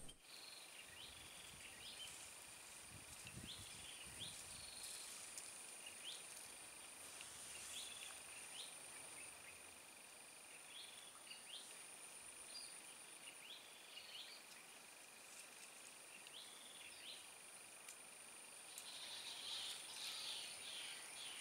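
Faint insect chorus: a steady high-pitched drone, with a short rising chirp repeating every second or two. The chirping grows louder and busier near the end.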